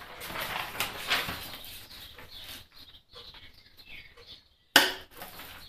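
A large paper drawing rustling as it is handled and pressed flat onto a wooden board, then a single sharp knock near the end.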